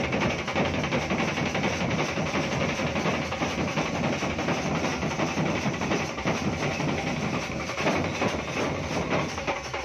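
A large troupe of drummers beating big painted drums with mallets and sticks together, a dense, continuous fast rhythm with no break.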